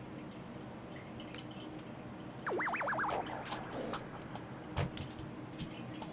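Faint light taps and dabbing of a basting brush, dipped in a small bowl of olive oil and brushed onto raw salmon fillets on a foil-lined tray. About two and a half seconds in there is a short warbling tone that wavers rapidly up and down.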